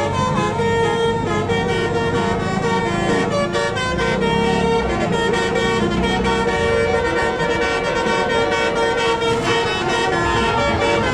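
Bus telolet horns playing a tune: several horn tones at once, shifting in quick steps, with one note held for a few seconds around the middle. A bus engine runs underneath.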